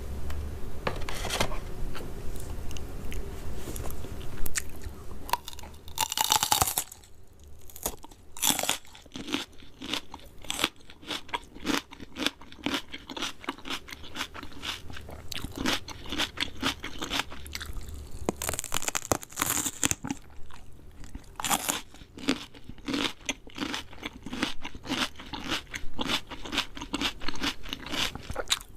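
Close-miked crunching and chewing of crispy fried chicken: bites into the crackling coating followed by rapid, irregular crunches as it is chewed.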